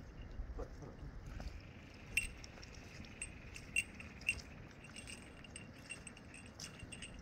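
A few sharp clinks and light rattles from a fishing net being carried, three of them loudest at about two, three and a half, and four seconds in. Faint high chirping repeats in the background.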